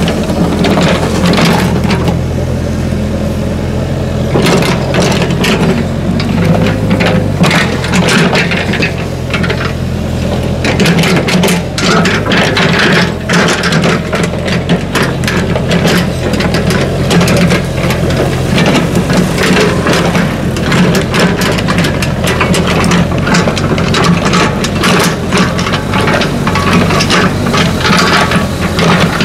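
Mini crawler excavator working dirt: its diesel engine runs steadily under hydraulic load, with frequent metal clanks, knocks and scrapes from the bucket, blade and steel tracks, coming thickest in the second half.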